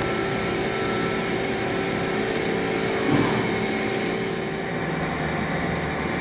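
Mori Seiki NT 4300 DCG/1500 turning and milling center running: a steady machine drone with several held tones, and a short louder sound about three seconds in.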